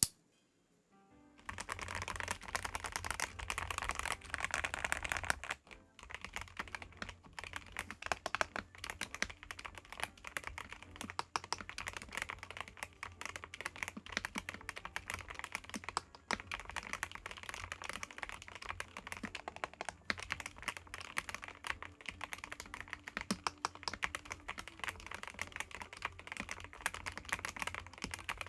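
Continuous fast typing on a YUNZII B75 Pro gasket-mounted mechanical keyboard with YUNZII MILK switches and PBT keycaps: a dense run of key clacks that starts about a second in.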